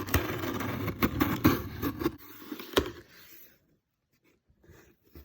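Cardboard box of a boxed model being opened and handled: a rustling scrape with a few sharp knocks, then it goes quiet after about three and a half seconds apart from a few faint ticks.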